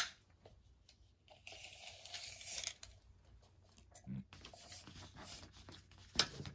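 Steel tape measure drawn out across a large paper plan sheet: a rasping slide of the blade with paper rustling, between sharp clicks at the start and near the end.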